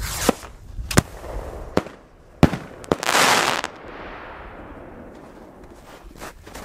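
Fireworks going off: a quick run of about six sharp bangs in the first three seconds, then a loud hissing burst lasting under a second that fades away slowly, with a few small pops near the end.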